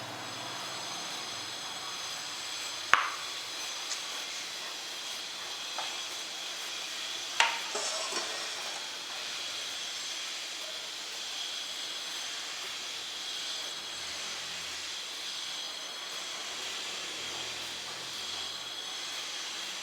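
Sabudana vadas deep-frying in hot oil: a steady sizzle, with two sharp knocks about three and seven seconds in.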